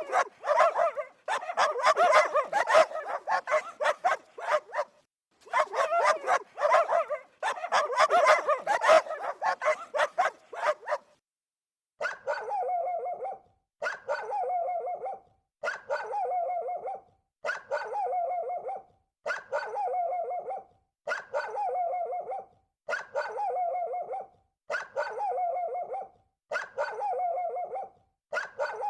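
Dog barking sound effect. For about ten seconds there is a fast, dense run of barks. After a brief gap, one identical dog call is repeated at an even pace, about every two seconds.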